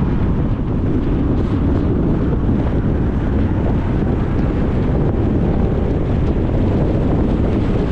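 Steady road noise of a car driving: a continuous deep rush of tyres and wind with no gear changes or other events.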